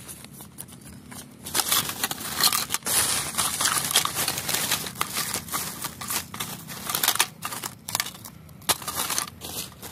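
Rubbish crinkling and rustling as it is handled by hand, in irregular bursts with sharp crackles.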